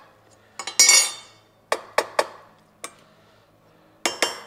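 Light mallet taps on a steel tube standing on a steel plate, knocking it square. Scattered knocks are broken by two louder clanks of steel on steel that ring on briefly, one about a second in and one near the end.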